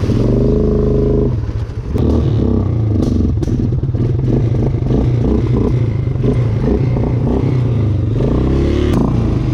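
Suzuki Vinson 500 ATV's single-cylinder engine revving as it is ridden, with clattering and knocks over rough ground. The engine revs up at the start, dips briefly, then runs unevenly and revs again near the end.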